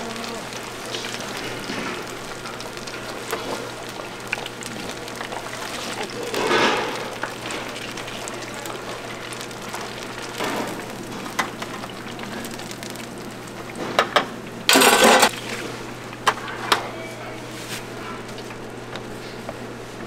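Deep-fryer oil sizzling steadily over a constant low hum, with a few sharp knocks and a louder brief clatter about fifteen seconds in.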